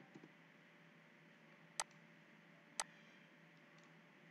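Two computer mouse clicks about a second apart against near-silent room tone.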